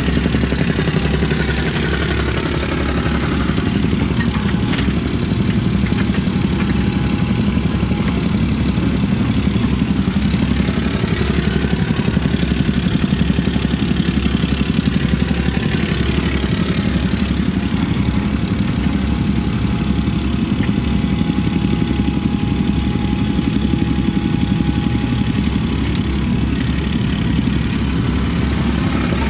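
Diesel engine of a compact construction machine running steadily.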